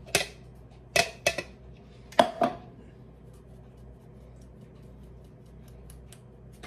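Flour being sifted through a hand-held wire-mesh sieve, tapped by hand: five sharp taps in the first two and a half seconds, then faint light ticks.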